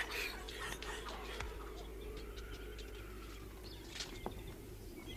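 Faint outdoor ambience of birds chirping over a steady low hum, with a few soft clicks.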